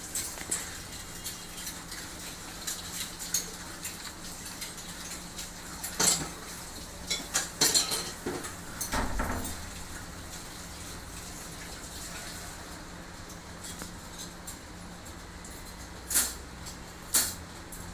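Scattered metallic clicks, clinks and knocks of tools and parts being handled during a microwave oven repair, with a faint steady hum underneath.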